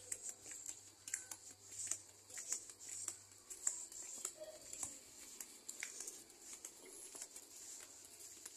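Footsteps in flip-flops on a concrete path, faint slapping and scuffing about twice a second.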